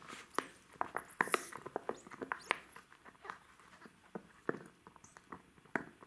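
Jack Russell terrier puppy chewing and mouthing a spiky rubber toy: irregular soft clicks and taps of teeth on rubber and paws on the mat, busiest in the first couple of seconds, then sparser.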